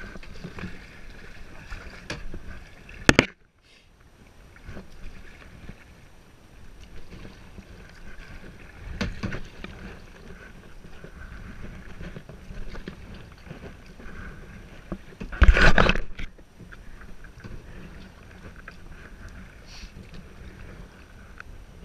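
Kayak paddling on a river: water swishing around the paddle and hull, with a sharp knock about three seconds in and a louder burst of noise about fifteen seconds in.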